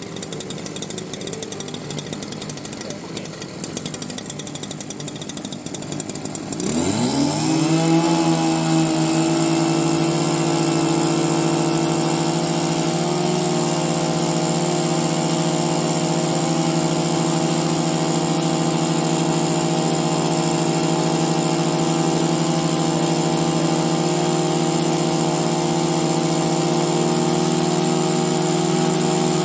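Small two-stroke engine of a Vessel gasoline impact wrench, idling with a rapid uneven patter, then revving up about six seconds in and holding a steady high-speed run.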